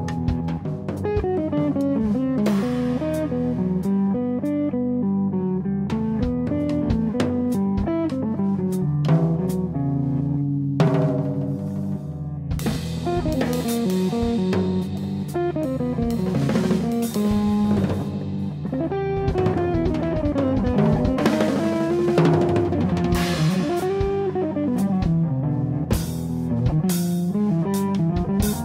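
Hollow-body archtop electric guitar playing a moving melodic line over a drum kit, with frequent drum and cymbal hits.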